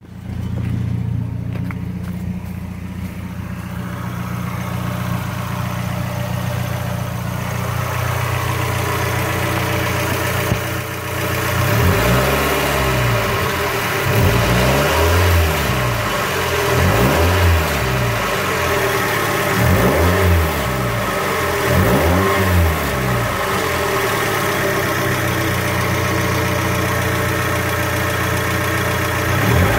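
2001 Mazda Miata's four-cylinder engine idling steadily. About a third of the way in it is revved about five times in quick succession, each rev rising and falling, then it settles back to idle before one more rev at the end.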